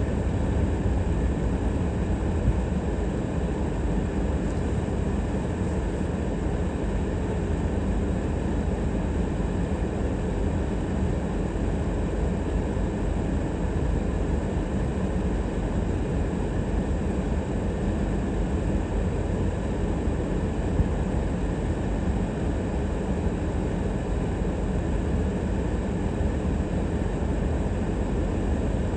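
Steady low rumble of a car driving: engine and tyre road noise heard from inside the cabin.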